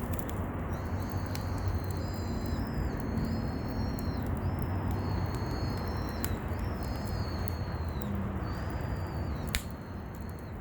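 A bird calling over and over, short high calls repeating about once or twice a second, over a steady rushing background noise. A sharp click sounds near the start and another near the end.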